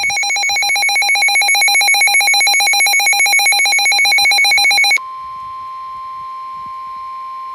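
Emergency weather alert tones: a loud, rapidly pulsing electronic alarm for about five seconds, then an abrupt switch to a single steady tone, the 1050 Hz NOAA Weather Radio warning alarm tone that precedes a warning announcement.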